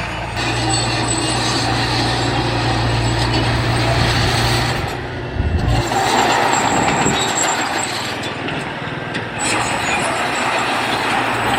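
Heavy diesel construction machine running: a steady engine hum, then a thump about five seconds in followed by a noisier clatter.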